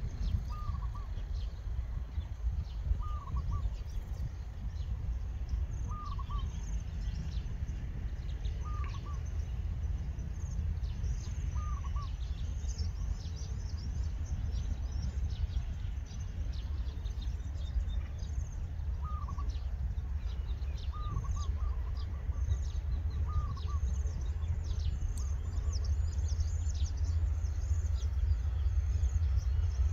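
Birds calling: one bird repeats a short call every few seconds over the scattered chirping of others. Beneath them runs the low rumble of an approaching diesel train, growing louder near the end.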